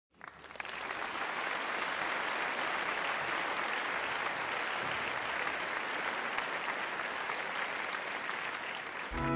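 Crowd applauding steadily, a dense even patter of claps; music comes in near the end.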